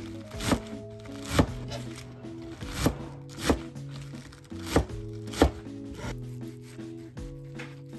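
Kitchen knife chopping garlic chives on a cutting board: about six loud, sharp strikes of the blade on the board, coming in uneven pairs, over background music.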